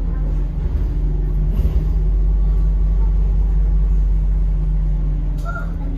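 Volvo B5LH hybrid double-decker bus under way, heard from inside on the upper deck: a steady low drone of its drivetrain, swelling a little through the middle and easing near the end.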